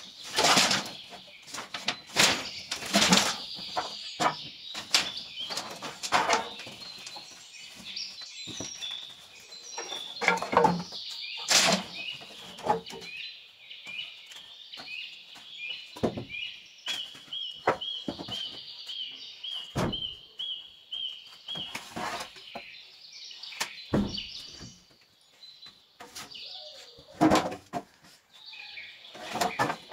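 Birds chirping throughout, including a quick run of repeated short notes about two to three per second in the middle. Irregular sharp knocks and thuds break in, loudest near the start and near the end.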